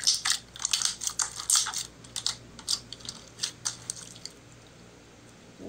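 Slime being kneaded and pressed by hand, giving a quick, irregular series of wet clicks and pops. They come thickly for the first couple of seconds, then thin out and stop about four and a half seconds in.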